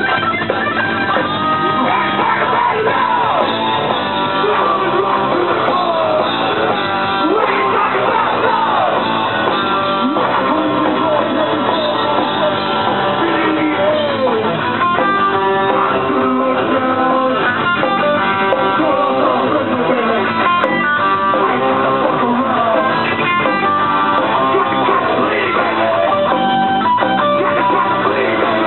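Punk rock band playing live, loud and without vocals: an electric guitar plays a lead line with bending notes over drums and bass, and about halfway through the band moves into steady, repeated chords.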